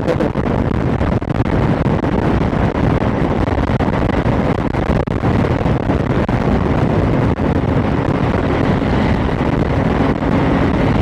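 Steady wind rush on the microphone over the engine and road noise of a motorcycle on the move.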